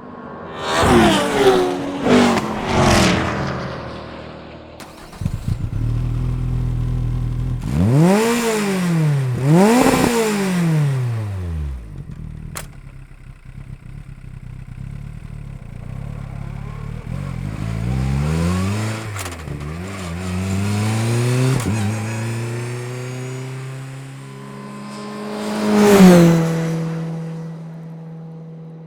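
BAC Mono's four-cylinder Cosworth engine and exhaust revving: three quick blips of the throttle, a steady low idle, then two big revs rising and falling, more revving later, and a loudest peak near the end whose pitch drops back to a steady low note.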